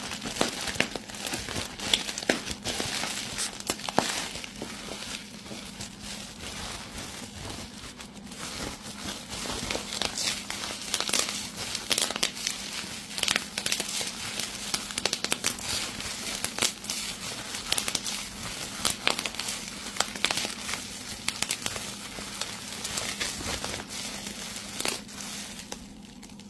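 Plastic bubble wrap being popped and crinkled by hand: many irregular sharp pops, a few much louder, over continuous crinkling of the plastic.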